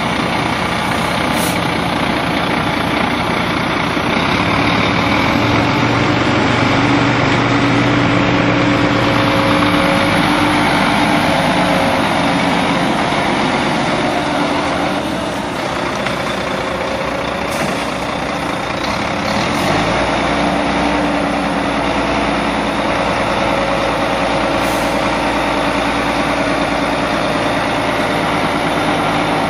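Heavy three-axle truck's diesel engine running at low revs as the truck pulls out from under its raised body and moves slowly. The engine note shifts partway through, with a deeper rumble coming in about two-thirds of the way along.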